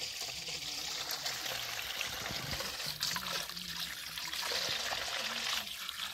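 Water running steadily from a garden hose into a steel bowl, an even trickling and splashing.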